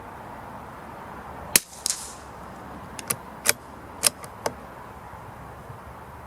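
A single shot from a CZ457 .22 LR bolt-action rifle firing a subsonic round: one sharp crack about one and a half seconds in, with a weaker double click a moment after it. This is followed by a quick series of smaller metallic clicks, typical of the bolt being worked to eject the case and chamber the next round.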